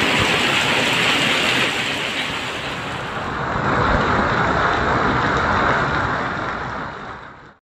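Hail and heavy rain falling on paved ground, a steady dense hiss that cuts off suddenly near the end.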